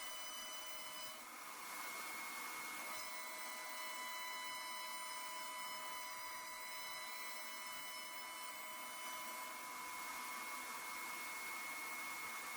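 CNC router spindle running steadily, a high whine over a hiss, its tone shifting a few times as the cut goes on.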